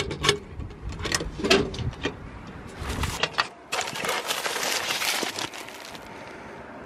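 Knocks and clatter from a metal mailbox as a package is pulled out and handled. These are followed by about two seconds of loud rustling noise, then quiet.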